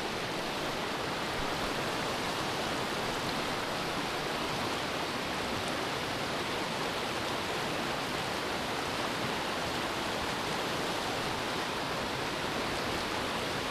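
Rushing water of a small rocky stream pouring over stones and through whitewater riffles: a steady, even rush with no breaks.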